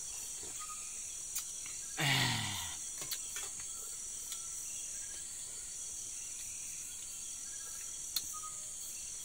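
Steady high-pitched chorus of crickets and other night insects. About two seconds in there is a short low sound, falling in pitch, and a few faint clicks.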